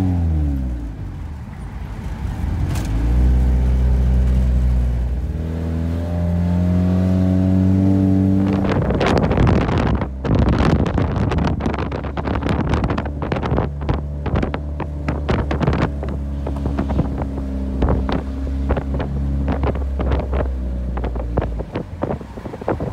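Car engine running at varying speed on a steep downhill road, its pitch dropping at the start and shifting a few times. About a third of the way in, wind starts buffeting the microphone over the engine, as through an open car window.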